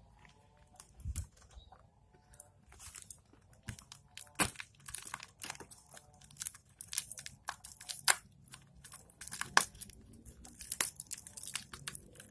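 Package wrapping being torn open and crinkled by hand: a run of irregular rips and crackles, sparse at first and much busier from about four seconds in.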